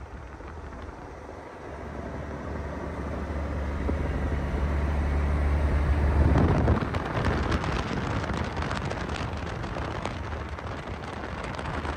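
1985 Peterbilt 359 semi tractor's diesel engine running as the truck drives past, growing louder to a peak about six and a half seconds in, then easing off as it moves away.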